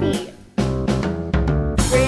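Instrumental break in an upbeat children's song: the music stops short, then a drum-kit beat with bass and chords comes back in about half a second in.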